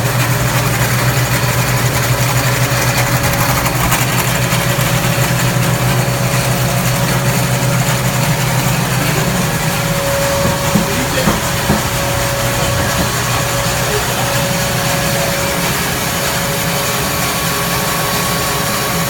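Flour-milling machinery running steadily: a loud, even mechanical hum and rush, its deep hum weakening about halfway through.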